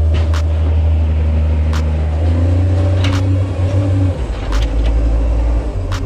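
A New Holland wheel loader's diesel engine working as the loader pushes its grapple bucket into a silage pile, a steady low drone whose note changes about four seconds in. Sharp clicks sound roughly every second and a half over it.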